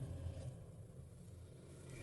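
A pause with only a faint low hum, fading over the first half second.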